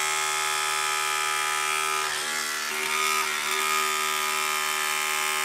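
Soda Can Robug toy's small battery-powered motor spinning its off-centre quarter-circle weight, a steady buzz that shakes the can body. About two seconds in, the sound turns rougher for a second or two.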